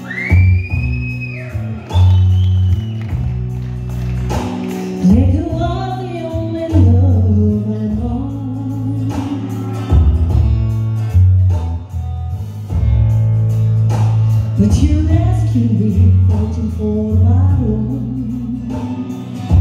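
A woman singing a slow country ballad into a microphone over instrumental backing, amplified through a stage PA.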